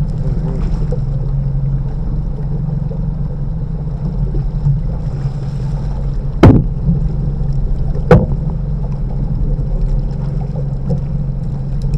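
A boat's motor running steadily with a low drone, and two sharp knocks about a second and a half apart near the middle.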